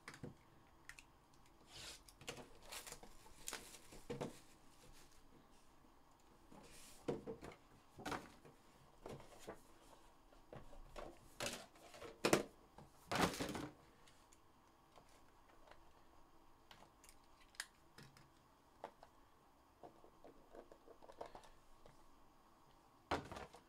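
Cardboard trading-card box being handled and opened by hand: scattered scrapes, rustles and clicks of cardboard, with a run of louder scrapes around the middle and one more near the end.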